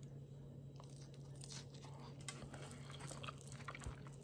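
Faint crunchy chewing of a mouthful of lettuce salad with chicken: a run of small irregular crunches and mouth clicks, over a steady low hum.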